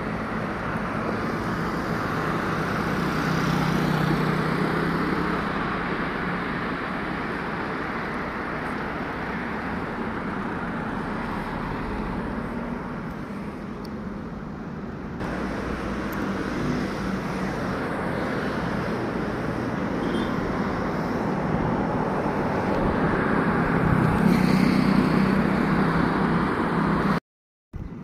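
Outdoor street ambience: a steady wash of road traffic noise, swelling as vehicles pass about four seconds in and again near the end. It breaks off abruptly twice.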